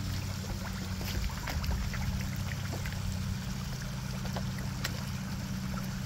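Koi splashing at the surface of a pond as they crowd together, with many small irregular splashes, over the trickle of a small waterfall and a steady low mechanical hum.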